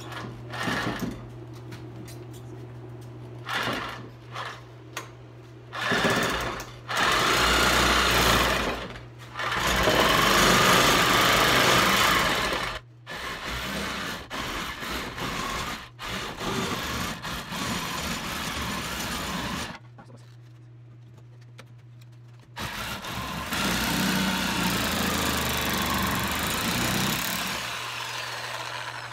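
Electric power saw cutting through the rubber of a snowmobile track, running in several stretches of a few seconds each and stopping in between. A steady low hum sits underneath.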